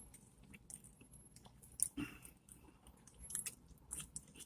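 A person chewing a mouthful of burger close to the microphone: faint wet mouth clicks and crunching, with a sharper bite sound about two seconds in.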